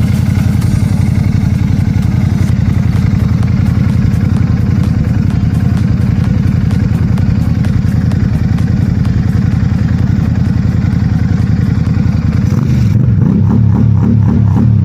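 Benda Dark Flag 500 cruiser motorcycle engine running steadily with an even exhaust pulse; near the end it turns a little louder and more plainly throbbing.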